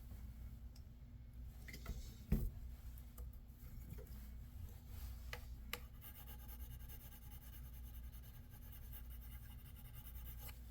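Soft plastic separator tool scraping and rubbing alcohol-softened sticky residue off a laptop's plastic casing, with a sharp knock a little over two seconds in and a few light clicks.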